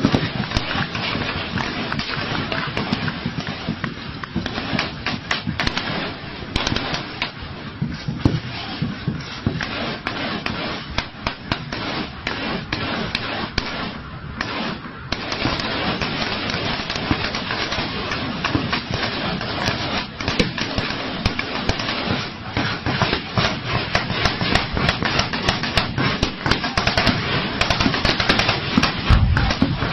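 Sustained automatic gunfire in a night-time armed clash, shots coming thick and fast in overlapping bursts. There is a brief lull about fourteen seconds in, then heavier firing.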